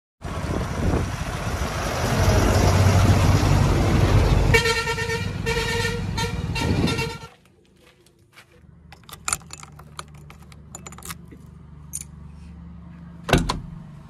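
Loud heavy-vehicle rumble, then a horn sounding for about two and a half seconds, both cut off abruptly about seven seconds in. After that a diesel engine runs steadily at low level, with scattered clicks and a sharp knock near the end.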